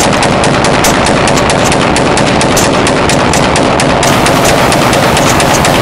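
Rapid, sustained gunfire: a long unbroken string of loud shots fired in quick succession, many a second.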